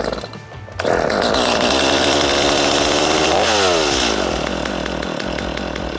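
Stihl MS250 two-stroke chainsaw starting on a pull of the starter cord at half choke. It catches just under a second in and runs at high revs, then the revs drop in a falling glide to a lower idle about three and a half seconds in.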